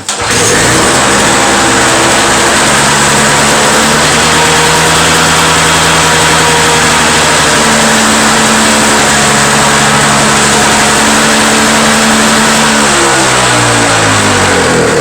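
Two-stroke Toro snow blower engine coming in suddenly and running steadily and loudly, its pitch shifting a few times and sagging near the end. It runs again after a cleaned carburetor with a restricted jet, a new spark plug and fresh 50:1 fuel mix.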